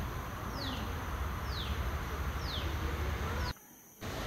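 A bird calling over and over, a short falling whistled note about once a second, over a steady low background hiss and rumble. The sound drops out briefly near the end.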